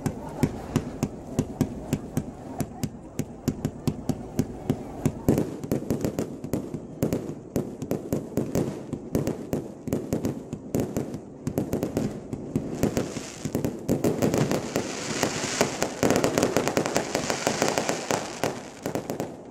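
Set-piece fireworks burning with rapid, dense crackling pops. About two-thirds of the way through, a louder steady hiss joins them as sparks spray up.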